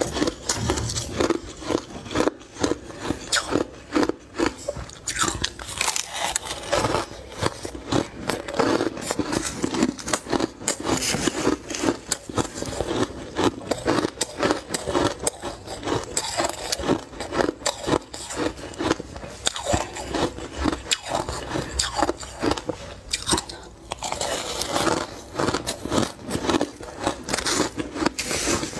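A person biting and chewing mouthfuls of soft, flaky crushed ice close to the microphone: a dense, continuous run of crisp crunches.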